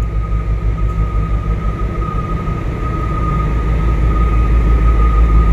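Steady low machinery rumble with one constant high-pitched whine over it, growing slightly louder in the second half: the hum of container cranes and ship machinery working during cargo loading.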